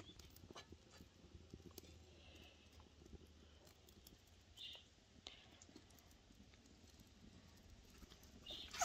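Near silence with faint scattered ticks, then a sharp clink at the very end as a domed steel lid is set on the cooking pan.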